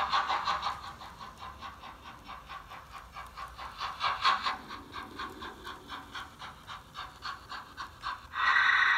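Model steam locomotive chuffing in a steady, even rhythm as it runs into the station, growing louder about four seconds in. Near the end a loud steady high tone starts suddenly.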